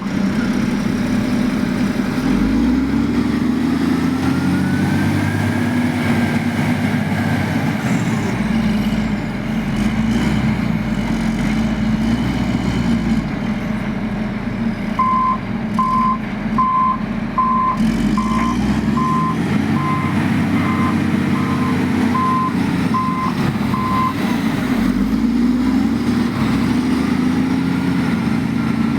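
Heavy diesel dump truck engine running, its revs rising and falling several times, with a reversing alarm beeping about a dozen times, a little over one beep a second, through the middle of the clip.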